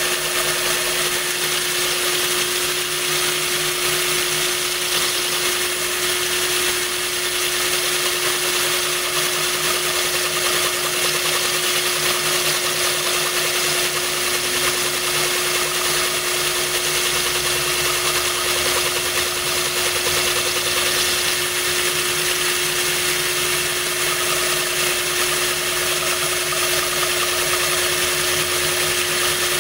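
Cordless drill running steadily with a tubular diamond bit grinding into a glass bottle, water trickling from a watering can onto the cut to cool it. A steady motor whine over a constant hiss of grinding glass and running water.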